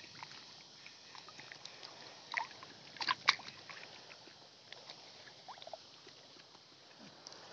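Faint sloshing of water, with a few short splashes and knocks, the loudest about three seconds in.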